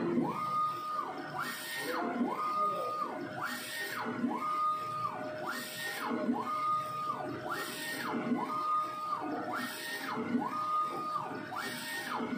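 A3 UV DTF printer's print carriage shuttling back and forth across the bed, its drive whining up in pitch, holding, and falling again on each pass, about every 1.3 s, with a short hiss on each pass and a steady hum underneath.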